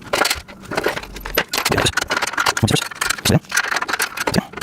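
Metal rack parts and hardware clinking and rattling as they are handled and fitted together, with irregular knocks and clicks throughout.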